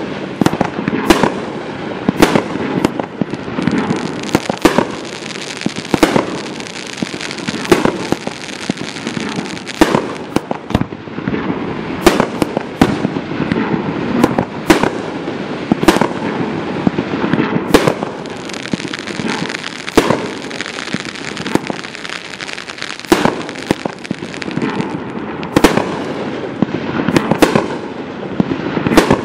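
Mad Ox Reaper Drone 200-gram fireworks cake firing shot after shot: sharp bangs about every one to two seconds, with continuous crackling from the crackling-flower and glitter stars between them.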